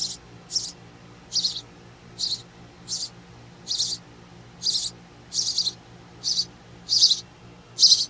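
Nestlings in a birdhouse giving begging calls while being fed: a run of about a dozen short, high, hissy chirps, roughly one every half to two-thirds of a second.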